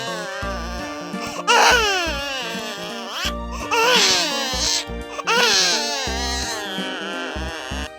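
A newborn baby crying in three separate bursts, over background music with a steady bass pattern.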